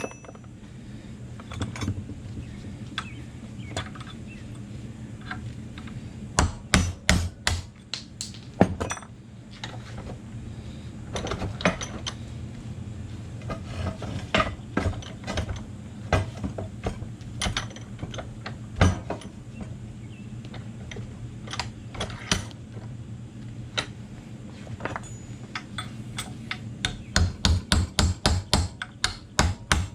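Hammer striking the steel yoke and caps of a rusted drive-shaft universal joint to drive it out. The metallic blows come in irregular clusters, ending in a fast run of about four blows a second, over a steady low hum.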